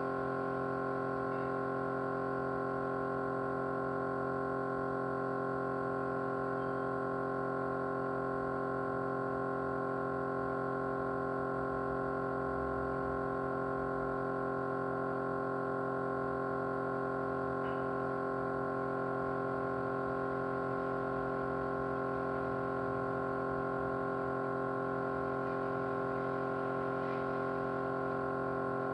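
Small motor running with a steady vibrating hum, many fixed tones that do not change in pitch or level.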